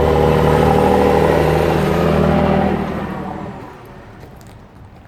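A motor vehicle's engine running loud, then fading away about three seconds in as it moves off.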